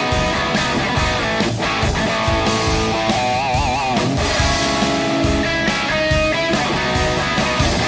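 Background music led by guitar over a steady beat, with a wavering held note about three seconds in.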